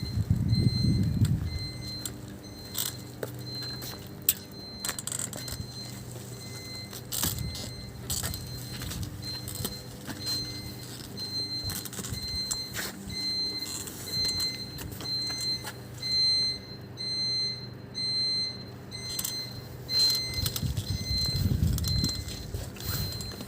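Audible alarm on a transformer substation's diesel generator set, beeping a high-pitched tone evenly, about one and a half to two times a second, over a continuous low hum. Louder low rumbles come at the start and again near the end.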